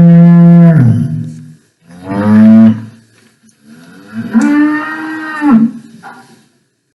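Cow mooing three times: a long moo that ends about a second and a half in, a short one, then a longer one that stops about two-thirds of the way through.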